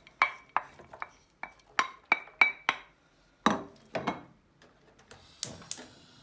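Wooden spoon knocking and scraping as diced onion is cleared from a bowl and stirred in a frying pan: a quick run of sharp taps, some with a short ringing note, then two louder strikes near the end. Under them a faint sizzle of onion in hot oil starts.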